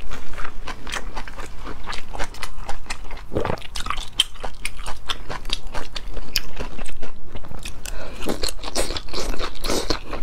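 Close-miked chewing of a mouthful of mianpi, slippery wide cold-skin noodles with shredded cucumber and carrot: a dense, irregular run of wet mouth clicks and crunches.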